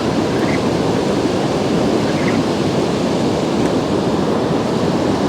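Steady rushing of fast river water, an even, unbroken noise that stays at one level.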